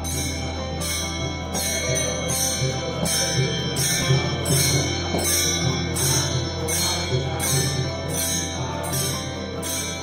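Varkari bhajan: brass hand cymbals (taal) clashing in a steady beat about twice a second, over a group of men singing devotional verses with a veena drone.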